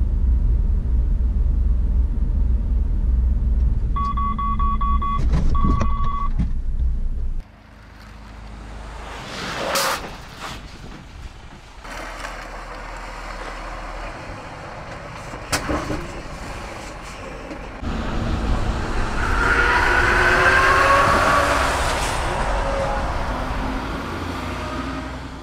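Mercedes-Benz Actros truck driving, heard from inside the cab as a loud, steady low rumble, with a warning chime beeping twice about four to six seconds in. Then a quieter stretch of truck sound with a couple of sharp whooshes, and a louder passage near the end with high squealing tones.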